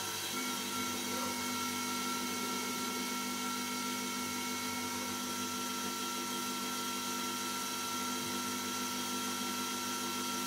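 Hercus CNC lathe running under its program, the spindle and drive whining steadily while the tooling cuts a 5/8-inch hex brass hose barb. Chips fly at the start, and a parting tool then works into the part.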